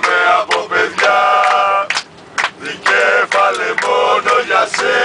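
A group of men chanting a football supporters' song in unison, loud sung phrases with a short break about two seconds in.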